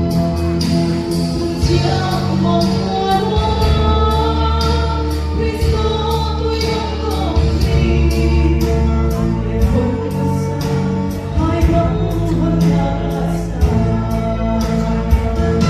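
A woman singing a gospel song into a microphone over an amplified backing track with a steady beat and held keyboard chords.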